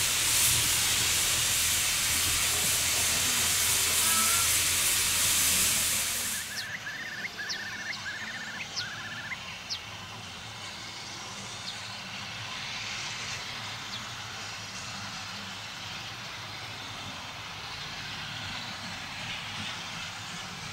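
Loud, steady hiss of steam from the standing Caledonian Railway tank engine No.419, cutting off abruptly about six seconds in. After that comes a much quieter steady background, with a few short high chirps, and a steam train running in the distance.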